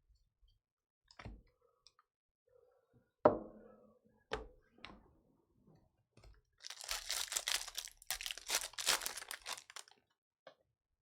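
A sharp knock on a table about three seconds in and a couple of clicks, then a trading card pack's foil wrapper crinkling and tearing open for about three seconds near the end.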